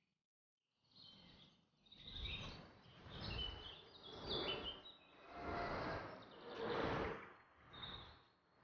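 Outdoor woodland ambience fading in about a second in: small birds chirping over a rushing noise that swells and fades about once a second.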